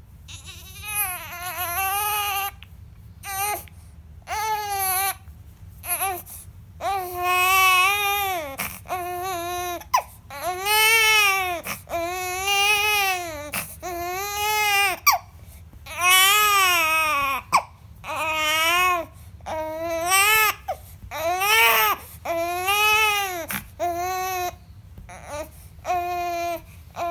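A four-week-old baby crying, one short wail after another, each rising and falling in pitch, with a few brief sharp sounds between cries.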